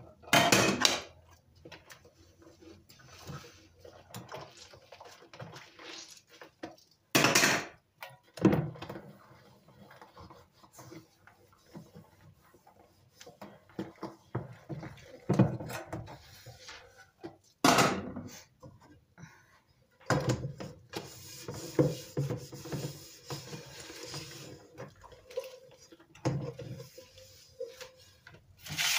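Dishes being washed by hand in a plastic bowl of soapy water: wet rubbing and sloshing as plates and bowls are scrubbed, broken by several sharp clatters and knocks of crockery.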